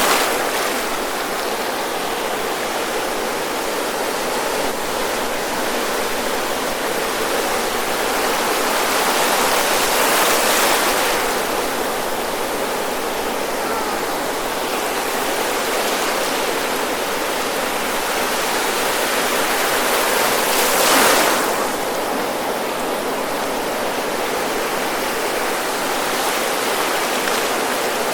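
Ocean surf washing in at the water's edge: a steady hiss of foam and wash, with a wave breaking about ten seconds in and a louder, sharper one about twenty-one seconds in.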